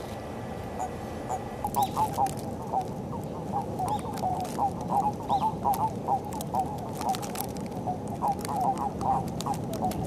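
Japanese common toads calling during their spring breeding gathering. Many short croaking notes come in irregular clusters from about two seconds in, over a steady background hiss.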